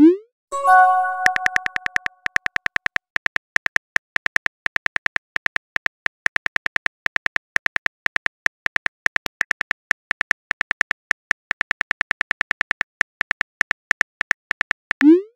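Simulated phone-keyboard typing clicks from a texting-story app: a fast, steady run of key taps as a long message is typed. At the start there is a short rising swoop and a chiming chord that fades over a second or so, the sent-message sound. Near the end another rising swoop marks the next message being sent.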